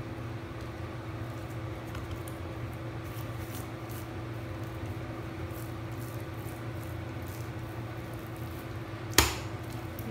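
Faint soft handling sounds of puff pastry dough being rolled and stretched by hand on a marble counter, over a steady low hum. A single sharp knock about nine seconds in.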